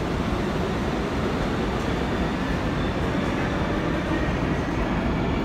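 New York City Subway train running on the far tracks of an underground station, a steady rail noise with no breaks.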